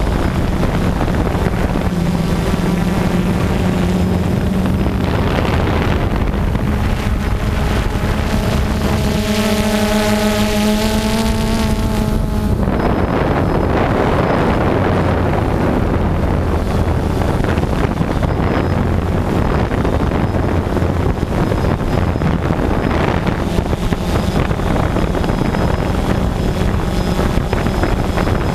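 DJI Phantom 2 quadcopter's brushless motors and propellers running in flight, a steady buzzing hum heard from the camera on the drone, with wind buffeting the microphone. Partway through, a stronger pitched hum holds for a few seconds and cuts off suddenly.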